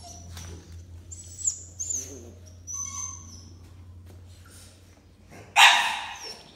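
Puppy whining in several short, thin, high-pitched squeaks in the first three seconds, then one sharp, loud, noisy yap or huff about five and a half seconds in.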